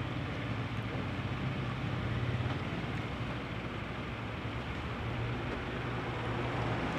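A steady low engine hum over street background noise, swelling slightly about two seconds in.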